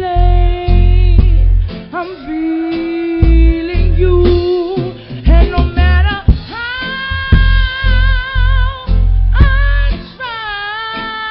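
Live band music: a woman singing long held notes with vibrato over guitar and a loud, pulsing low end.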